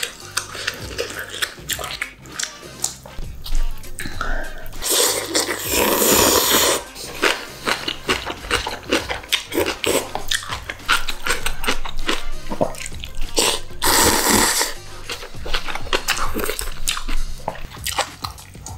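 Slurping and chewing instant cup noodles, with many small wet mouth clicks and two long, loud slurps, one about five seconds in and one about fourteen seconds in. Soft background music runs underneath.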